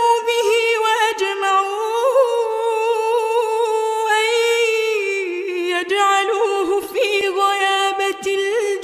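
A woman's voice chanting Quran recitation in melodic tajweed style, drawing out long held notes with small ornamental turns around one pitch.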